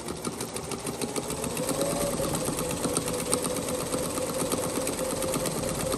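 1968 white Singer 221 Featherweight sewing machine stitching through fabric: its motor hum rises over the first couple of seconds, then holds steady under a fast, even ticking of the needle and feed.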